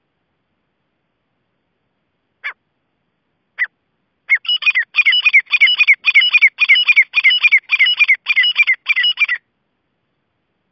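Grey francolin (teetar) calling: two single sharp notes, then a fast run of loud ringing repeated phrases, about two or three a second, for some five seconds before it stops abruptly.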